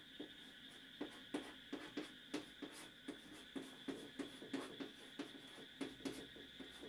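Chalk tapping and scratching on a chalkboard as an equation is written: a faint, irregular run of small taps, several a second.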